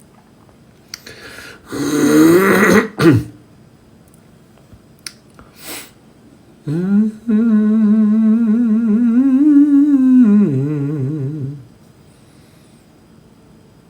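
A man's voice humming one long wavering note of about five seconds, starting about seven seconds in, rising slightly and dropping lower near the end. About two seconds in there is a loud, noisy vocal burst of about a second and a half, with a short second burst right after it.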